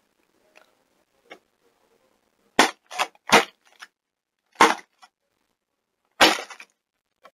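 Sharp knocks close to the microphone: five loud ones, three in quick succession a little over halfway in, then two more spaced out, with silence between.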